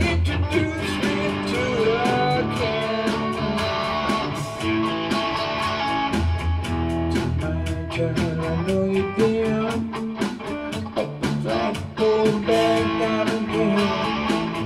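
Electric guitar playing an instrumental break in a rock song, with held and bent notes over a low bass line and a steady beat.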